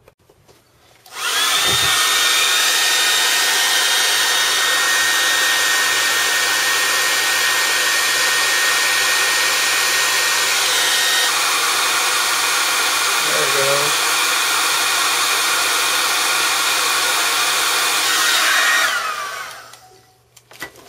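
Handheld hair dryer switched on about a second in, blowing steadily with a faint high whine, then switched off near the end, the whine falling as the fan spins down. It is heating heat-shrink tubing over soldered wire leads.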